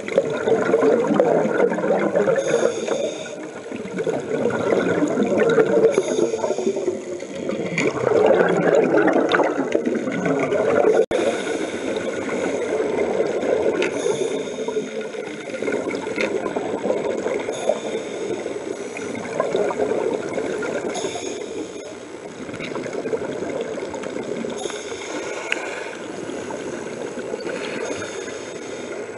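Scuba divers' exhaled bubbles burbling up from their regulators underwater, in surges every few seconds that grow softer and steadier in the second half.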